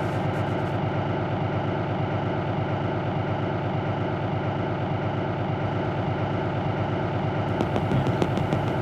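An engine idling steadily with an even, rapid pulse; a quick regular ticking joins in near the end.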